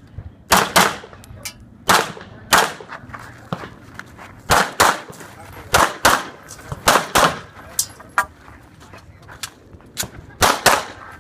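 Semi-automatic pistol shots in a timed practical-shooting string, mostly fired in quick pairs a fraction of a second apart, with a second or so between pairs and a longer pause about two-thirds of the way through.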